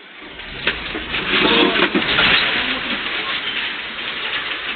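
Earthquake shaking a shop: a deep rumble sets in and boxed goods on the shelves rattle and clatter, heaviest in the first few seconds. A person's voice calls out briefly amid the rattling. Heard through a security camera's microphone.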